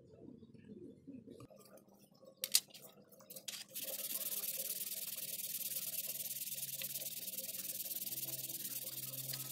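Hand-sanding the back cover of a Xiaomi Redmi 4A phone with a small abrasive pad: a steady scratchy hiss that starts about four seconds in, after a few sharp clicks.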